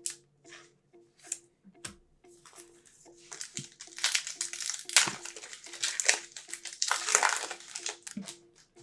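A 2021-22 NBA Hoops trading-card pack wrapper being torn open and crinkled by hand. A few light taps come first, then a few seconds of dense crinkling about three seconds in.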